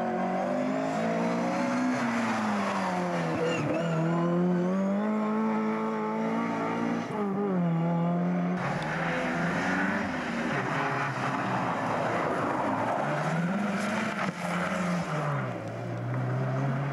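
Rally car engines being driven hard past the spectators, the pitch climbing under throttle then dropping sharply at gear changes and lifts, over and over.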